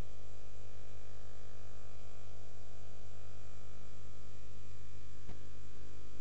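Steady electrical mains hum and buzz from the sound system, with one short click about five seconds in.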